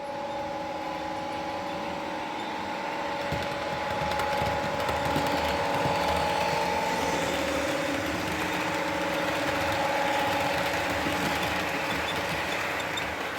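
Class 55 Deltic locomotive engine sound running steadily with a constant whine, getting a little louder about four seconds in.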